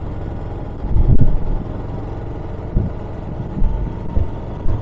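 Motorcycle engine running while riding, heard from a helmet-mounted camera, with a steady low rumble and wind buffeting the microphone in several short gusts.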